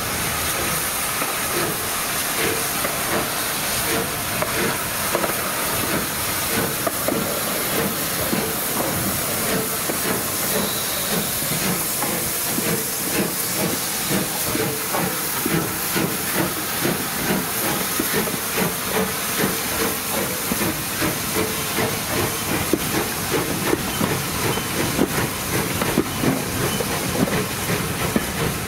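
Steam locomotive 34027 Taw Valley, a rebuilt Bulleid West Country class Pacific, hissing steadily as steam escapes around its cylinders, with regular exhaust chuffs starting about halfway through and quickening as the train pulls away.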